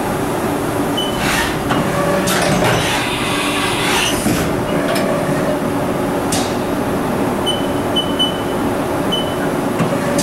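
Haas VF-2 CNC mill's automatic tool changer swapping tools in the spindle: a steady machine whir with a series of clunks and clicks as tools are released and clamped, and a few short high tones near the end.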